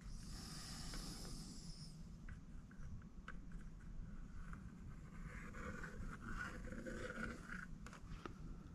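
Faint scraping and brushing of a paintbrush, first working paint on the palette, then stroking across the painting surface from about five seconds in, over a low steady hum.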